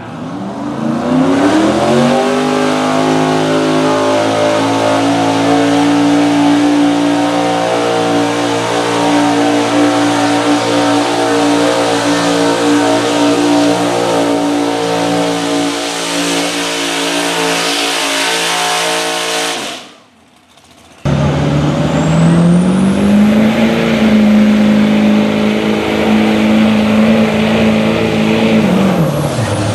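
Pulling pickup trucks at full throttle, each dragging a weight-transfer pulling sled. The first engine revs up over a couple of seconds and holds steady at high revs until an abrupt cut. The second runs with a high whine that rises and then holds; near the end its engine note drops sharply and climbs back.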